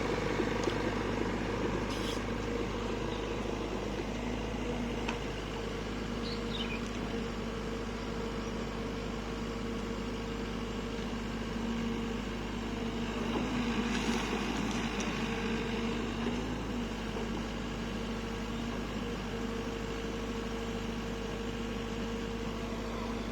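SANY SY55C mini excavator's diesel engine running steadily, with a couple of brief knocks, one about two seconds in and one around the middle.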